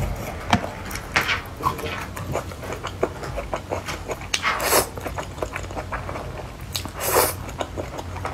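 Close-up mouth sounds of a person eating thick noodles in spicy sauce: wet chewing and smacking clicks, with two long slurps about halfway through and near the end as noodles are drawn into the mouth.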